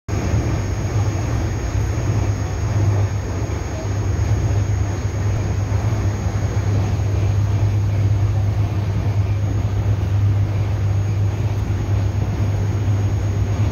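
Steady rumble of a moving passenger train heard from inside a sleeper coach, a constant low hum under an even noise.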